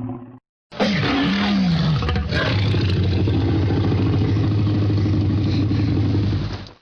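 Dinosaur roar sound effect, the Tyrannosaurus rex roar: one long roar of about six seconds that opens with a bending pitch sweep, settles into a steady low drone, and cuts off abruptly. It follows the tail end of an earlier roar that stops about half a second in.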